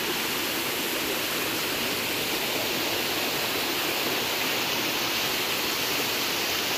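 Small waterfall and rocky stream rushing steadily, water tumbling over boulders close by.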